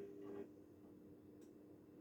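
Haier 7.5 kg washing machine on a delicate wash: a motor hum with water swishing as the drum turns. Both stop about half a second in, and the machine goes quiet in the pause between drum turns.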